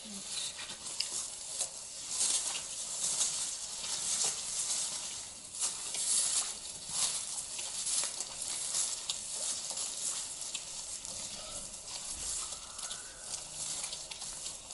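Footsteps swishing and rustling through tall grass and ferns: an irregular run of crisp rustles.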